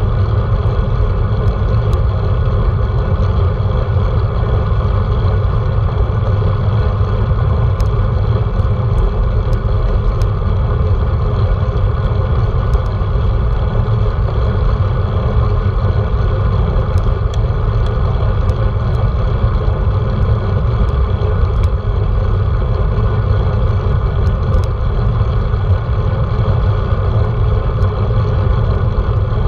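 Steady wind rumble on a handlebar-mounted GoPro's microphone while riding a road bike at speed, with the tyres rolling on asphalt underneath.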